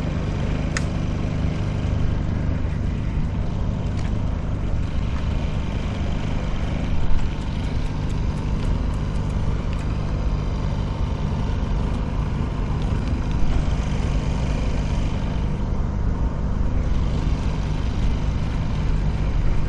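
A vehicle running steadily, with a constant low engine hum and road noise.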